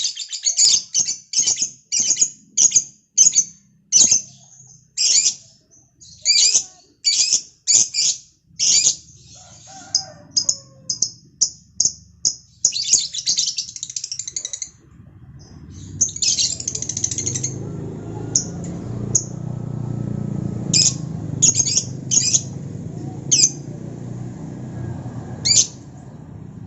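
A bird calling in a long series of short, sharp, high-pitched chirps, about two a second, thinning out to scattered single calls about halfway through. A steady low rumble comes in underneath at about the same point.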